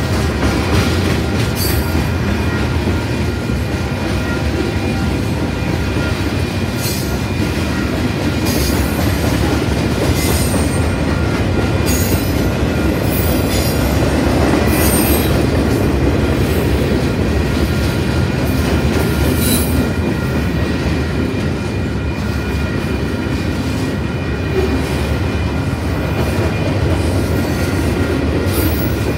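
Freight cars rolling past close by: a steady heavy rumble of steel wheels on rail, with a continuous high-pitched squeal and scattered sharp clanks every few seconds.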